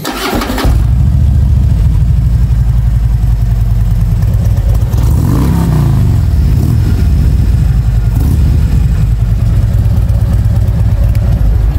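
Harley-Davidson 2014 Street Glide Special's Twin Cam 103 V-twin running through a Vance & Hines X-pipe with twin slash-cut dual mufflers. It comes in loud just under a second in and runs with a rapid, lumpy low pulse, with one throttle blip in the middle.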